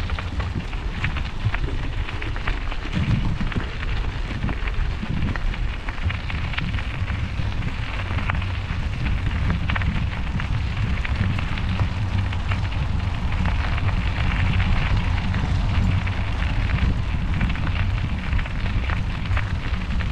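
Wind buffeting the microphone of a moving bicycle rider: a steady low rumble with constant crackle.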